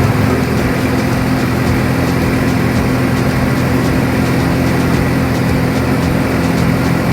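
A small engine running steadily at an even speed, with a constant noisy hiss over it.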